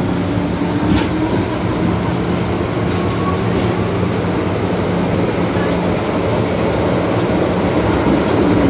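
Inside an MTR M-Train metro car pulling out of a station into the tunnel: a steady drone of motors and wheels on the rails with several low tones, growing a little louder toward the end. Two brief high squeals cut in, a few seconds apart.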